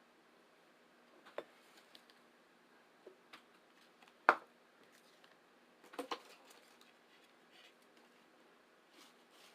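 Eating sounds of people eating tacos: a few scattered short clicks and crunches of chewing and mouth noises. The loudest comes about four seconds in and a close pair follows around six seconds.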